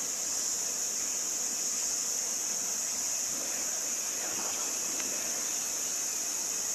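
Steady high-pitched drone of an insect chorus, unbroken throughout, with only faint water sounds beneath it.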